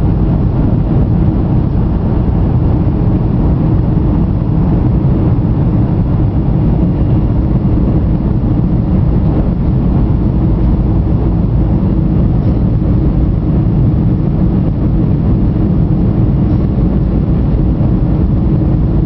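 Jet airliner cabin noise during the climb just after takeoff: a loud, steady rumble of the engines and rushing air, heard from a window seat beside the wing.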